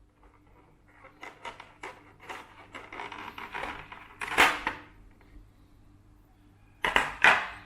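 Keycap box being opened and handled: a run of light clicks and rustles, a sharper knock about four and a half seconds in, and two more knocks near the end.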